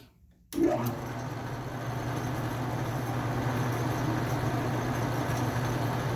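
Metal lathe running steadily while turning down the end of an electric motor's rotor. It starts suddenly about half a second in, after a moment of near silence.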